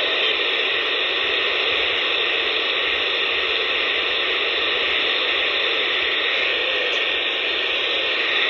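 Steady hiss of static from an AM CB radio receiver tuned to 27.465 MHz, heard between transmissions. A faint steady tone comes in briefly near the end.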